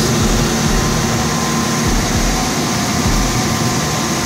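Unique 2722 CNC machining center running, its 14-horsepower router spindle holding a steady whine over a constant rushing noise while it cuts a shaker cope profile on the end of an oak door part.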